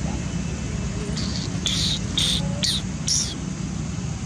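A calling insect gives five short, high, buzzy chirps in quick succession between about one and three seconds in, the first one faint. A steady low hum runs underneath.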